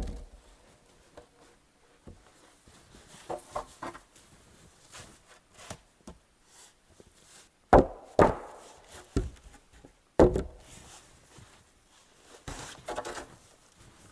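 Wood being struck or knocked: a string of irregular, sharp thuds and knocks, the loudest right at the start, about eight seconds in and about ten seconds in.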